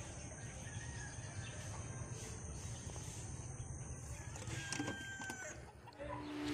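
Rural outdoor ambience: birds chirping and calling in short, scattered notes over a steady low rumble and a thin, steady high hum.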